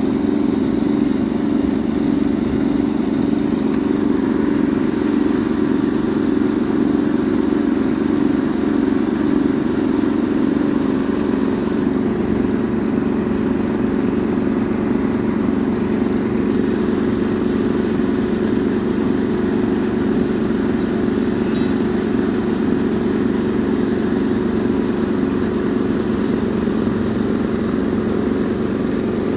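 An engine idling steadily: a constant low hum with an even, faint pulse.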